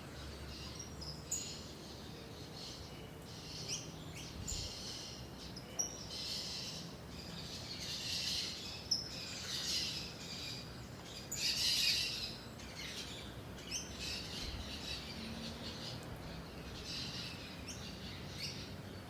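Several birds chirping and singing, with many short high calls and brief trills overlapping, busiest in the middle of the stretch.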